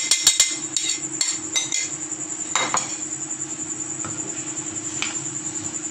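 A steel spoon clinking and scraping against a steel pan while stirring boondi in hot sugar syrup. A quick run of clinks comes in the first two seconds, then a single stroke a little past halfway, over a steady low hum and high whine.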